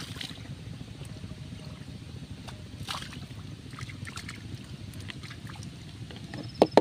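Water flung from a metal bowl splashes onto a pond right at the start, over a steady low rumble. Two sharp knocks come close together near the end.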